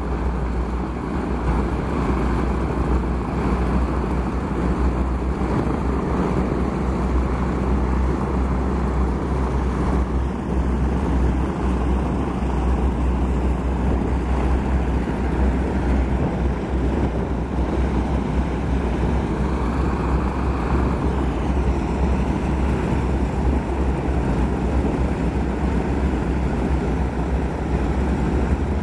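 T-6 Texan trainers' nine-cylinder Pratt & Whitney R-1340 radial engines running steadily at low power: a deep, even rumble.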